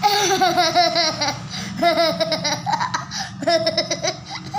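High-pitched laughter in long runs of quick bursts, with a short pause around the middle.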